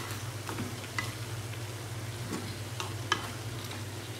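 Spatula stirring pasta, noodles, chopped tomatoes and onions in a wok: a few irregular scrapes and taps against the pan over a faint sizzle of frying, with a low steady hum underneath.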